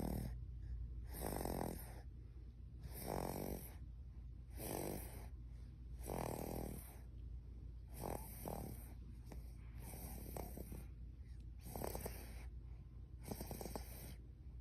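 Rhythmic snoring of a sleeper: about nine snores, roughly one every second and a half, the later ones more rattly and snuffly.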